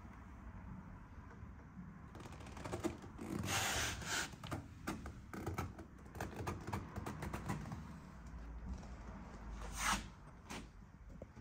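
Handling noise from a handheld camera: irregular clicks and knocks, with two louder rustles about 3.5 s and 10 s in.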